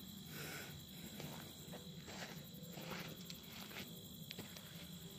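Faint outdoor background of insects calling, a steady high drone, with a few soft footsteps and handling rustles.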